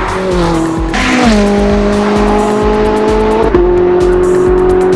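Ferrari 458 Italia's naturally aspirated V8 passing close and pulling away hard. Its note drops in pitch as it goes by. About three and a half seconds in there is an upshift.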